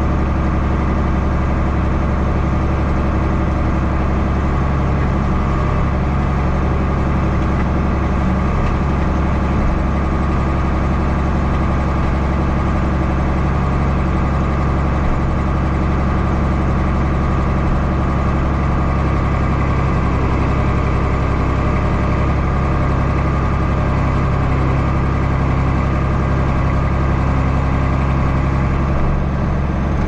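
Large diesel engine of farm machinery running steadily, an unchanging low drone.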